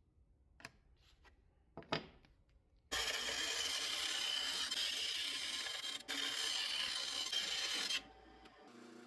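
Handle material being worked with an abrasive shop tool: a few light clicks, then a steady rasping, grinding noise for about five seconds, broken once for an instant, stopping suddenly.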